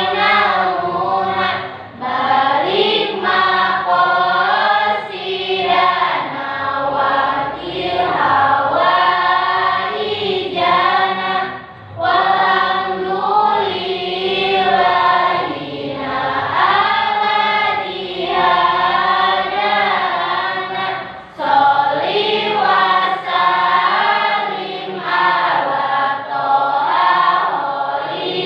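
A class of students singing together as a group, one continuous song in long phrases with brief breaks between them.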